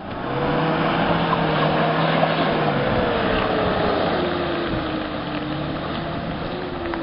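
SUV engine running under light throttle as it drives slowly through a mud hole, a steady engine note over a broad rushing noise. The note slowly drops in pitch and the sound gets a little quieter in the second half as the vehicle pulls away.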